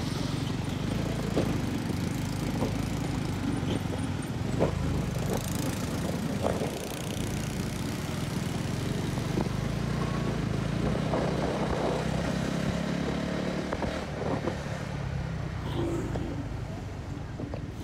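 Honda CB150R's single-cylinder engine running steadily while the motorcycle is ridden along a road.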